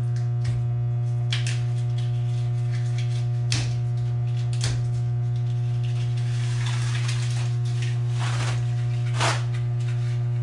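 Steady low electrical mains hum, with the scraping and rustling of a cable's outer sheathing being peeled back and pulled down by hand, and a few light knocks.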